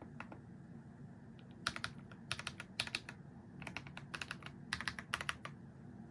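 Typing on a Keychron V1 Max 75% mechanical keyboard with Banana switches. A few faint keystrokes come first, then quick runs of sharp key clicks from about a second and a half in until shortly before the end.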